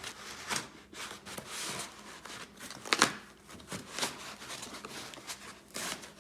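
Cardboard box and plastic packaging rustling, crinkling and tearing as a heavy metal RC excavator is pulled out of it, with a sharp knock about three seconds in.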